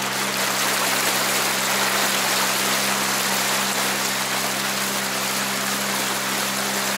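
Mercury 3.3 two-stroke outboard motor running at a steady speed on its break-in run, with the constant wash of water from the boat's wake.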